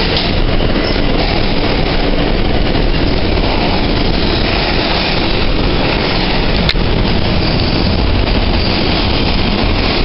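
New York City subway car running, heard from inside: a loud, steady rumble and rush of wheels on rails, with one sharp click about two-thirds of the way through.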